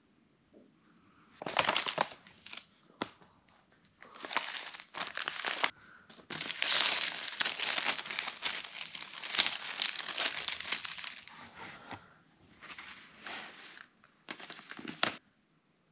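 Thin plastic shopping bags crinkling as they are handled and spread out, in several bursts, the longest lasting about six seconds.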